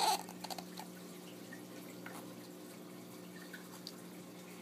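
A glossy guidebook page being turned and settling right at the start, followed by a few faint ticks of paper and fingers over a steady low hum.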